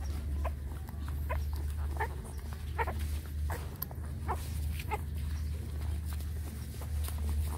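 Nursing puppies squeaking and whimpering, short high squeaks about once a second, over a steady low hum.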